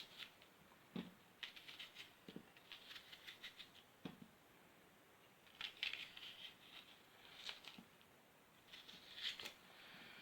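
Faint, irregular crisp cuts and light taps of a knife slicing an onion into pieces, in small bunches of quick strokes with the occasional low knock on the board.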